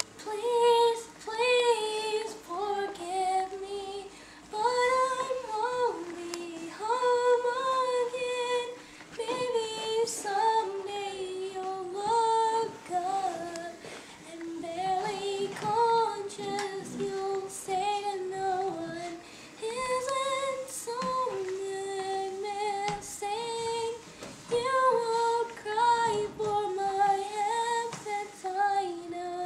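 A girl singing a song solo, a single voice carrying the melody in phrases of a few seconds with short breaths between them.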